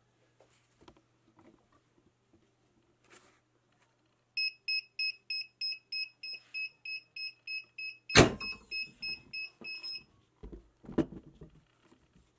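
Heat press timer beeping rapidly, about three short beeps a second, when the pressing time runs out. About 8 seconds in the press is released with a loud clunk while the beeping goes on, and a few more knocks follow as the press is moved away.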